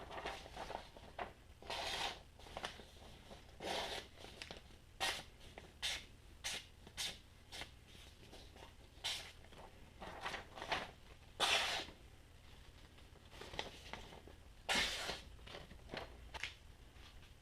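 A freshly sharpened hatchet edge being tried for sharpness: a series of short, irregular scraping strokes of the blade.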